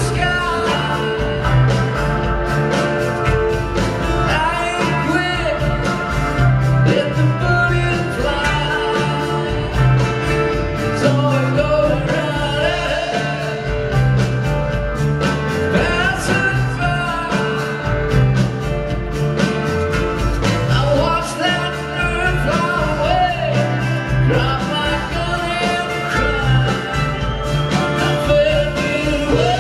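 Live band playing an up-tempo bluegrass-rock song: banjo, acoustic guitar, mandolin, drums and keyboard together, loud and steady without a break.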